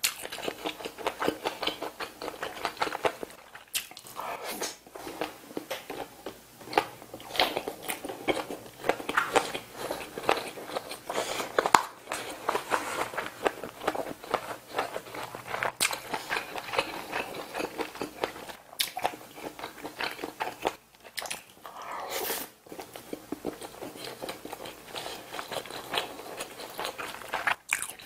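Close-miked eating: a person biting into and chewing sausage, rice and braised kimchi, with a steady stream of wet mouth smacks and small crunches and a few sharper clicks now and then.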